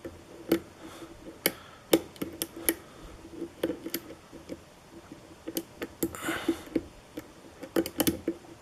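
Lock pick working the pin stack of a spool-pinned Kwikset lock cylinder under tension: irregular small clicks and ticks with a gritty, grinding feel, and a brief scrape about six seconds in.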